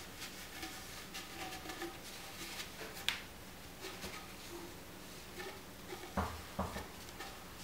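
Faint rustling of a paper towel wiping the dust seals inside the tops of a RockShox Boxxer fork's lower legs, with small ticks, a sharp click about three seconds in and two soft knocks a little after six seconds.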